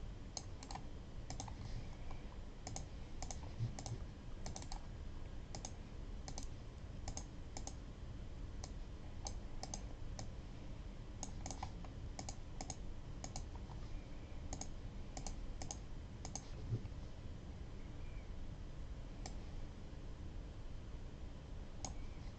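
Faint, irregular clicks of a computer mouse and keyboard, one every half second to a second or so, with a longer quiet gap about three-quarters of the way through.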